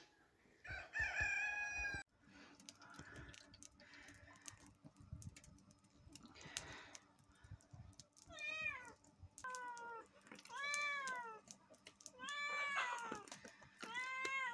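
Cats meowing to be fed, four drawn-out meows in the second half, each rising then falling in pitch; they are begging for more fish even after being given the fish heads. A short animal call sounds near the start.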